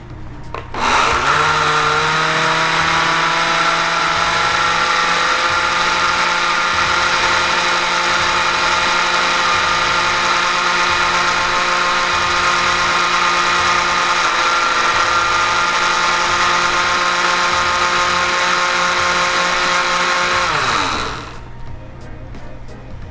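Glass-jar countertop blender puréeing thick butternut squash and carrot soup. The motor starts about a second in, its whine rising quickly to speed and then holding steady; near the end it winds down and stops.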